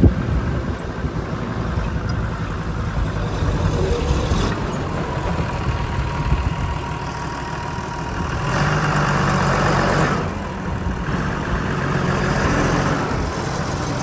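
A vehicle's engine running steadily as it drives across a field. The sound of a Massey Ferguson tractor's diesel engine close alongside swells louder for a couple of seconds past the middle.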